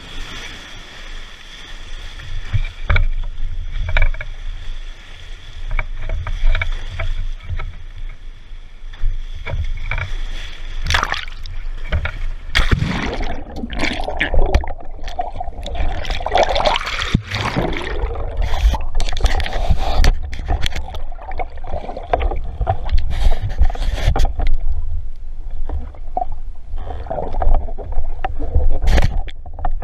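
Surf and water splashing and churning around a waterproof action camera as a spearfisher goes out through breaking waves and swims underwater. Many sharp knocks and splashes run through it, and it gets louder and busier about halfway through.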